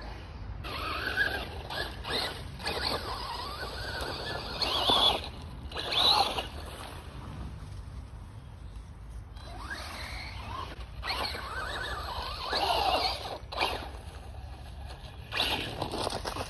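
FTX DR8 radio-controlled buggy's electric motor whining in about four bursts of throttle, the whine gliding up and down in pitch.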